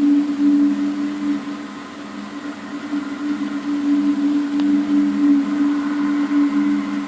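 Low, steady two-tone droning hum that swells and fades in loudness: the unexplained 'strange sound' heard from the sky that the recorder says recurs every ten minutes to half an hour.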